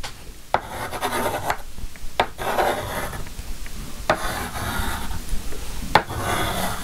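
Pencil scratching across a plastic-laminated wooden tray in short drawn strokes, with a sharp tick about every two seconds.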